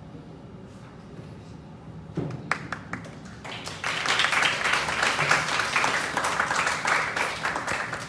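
Audience applause: a few scattered claps about two seconds in, building into steady clapping from about four seconds on.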